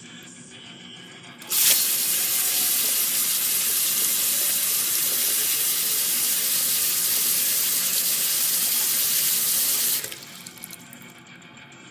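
Water tap turned on suddenly, running hard into a sink basin onto a submerged phone for about eight seconds, then shut off.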